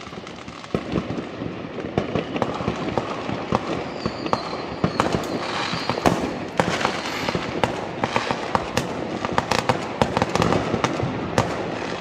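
Fireworks and firecrackers going off, with many bangs and crackles in quick succession over a steady rumble. A brief high whistle comes about four seconds in.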